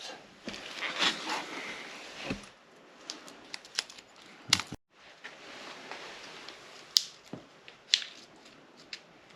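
Scattered light metallic taps and clicks of hand tools on a car's strut top mount and bearing as the two are worked apart. The strikes are irregular, the sharpest about four and a half and seven seconds in.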